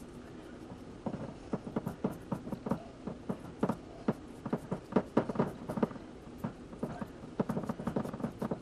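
Hands patting and pressing raw ground meat into a glass loaf pan: a quick, irregular run of soft wet pats, starting about a second in.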